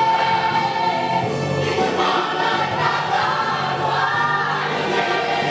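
A costumed stage ensemble singing together as a choir. The first note is held for about a second, then the melody moves on in layered voices.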